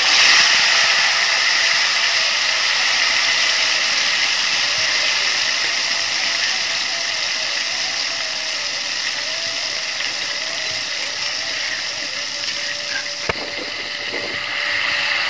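Ground red chili paste sizzling loudly as it hits hot frying oil in a stainless-steel wok. The sizzle starts suddenly and eases off slowly, with a single knock near the end.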